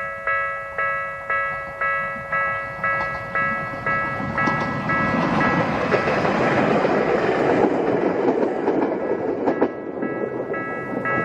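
Level-crossing warning bell ringing about twice a second while a Bessho Line electric train passes over the crossing. The train's rumble swells from about four seconds in, with a few wheel clacks over rail joints, and dies away near the end as the bell rings on.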